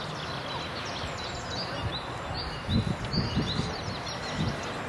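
Small songbirds chirping continually over a steady open-air hiss. About three seconds in come a few low, muffled bumps, with one more near the end.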